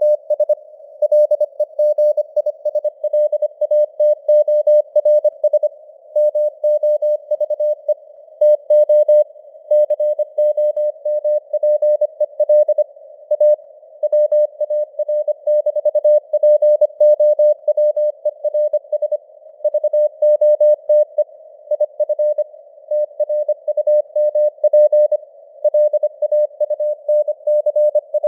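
Morse code (CW) sent at 25 words per minute: a single steady tone keyed rapidly on and off in dots and dashes, spelling out news headlines. It sits in simulated radio band hiss, and the signal strength rises and falls (QSB fading).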